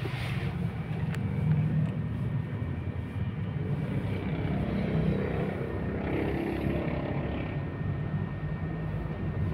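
Car engine and tyre rumble heard from inside the cabin while driving slowly, with a swell of noise about six seconds in.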